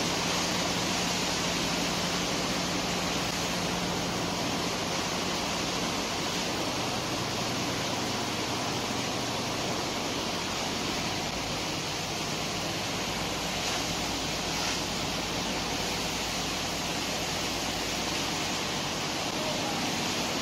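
Steady rushing of a high-pressure water jet from a hose, blasting a sand pile down into watery slurry. A low, steady machine hum runs underneath.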